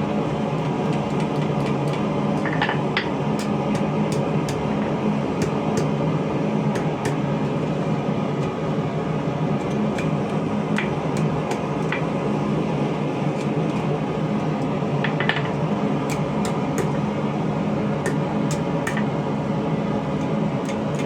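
A forge running with a steady, unbroken roar, with a few faint metallic clinks scattered through it.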